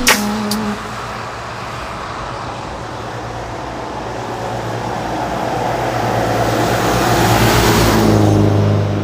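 Road noise of a car driving on a wet motorway: a steady hiss of tyres and engine that swells over several seconds to its loudest near the end, then eases.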